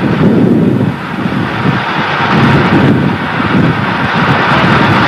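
Loud, steady rumbling noise with wind buffeting the microphone, no distinct tones or strikes.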